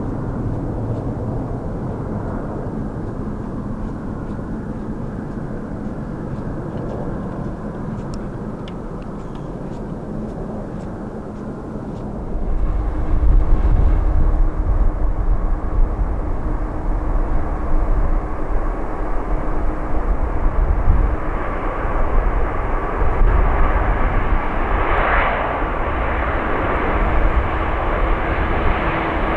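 Jet airliner engines running with a steady rumble that gets louder about twelve seconds in, then a higher whine building toward the end as the aircraft comes closer.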